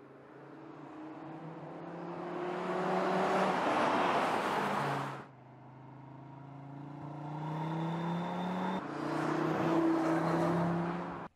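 Audi RS3's 2.5 TFSI five-cylinder engine accelerating hard, its note climbing steadily in pitch and growing louder. It cuts off abruptly about five seconds in, then builds again in a second rising run that ends in a sudden cut.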